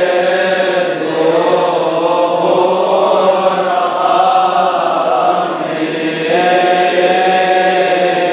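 Coptic liturgical hymn chanted by men's voices, in long drawn-out melismatic notes that slide slowly between pitches, with one long held note near the end.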